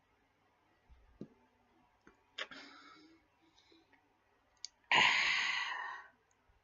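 Wet mouth clicks from chewing. About five seconds in comes a loud, breathy rush of air lasting a little over a second.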